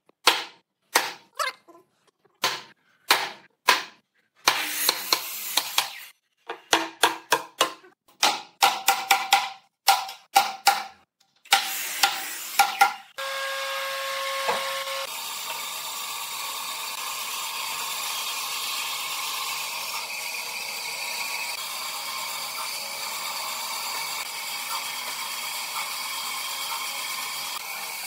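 Sharp, ringing knocks on wood, two or three a second in short runs, like tool work at the bench. About halfway through they stop and give way to a steady hiss.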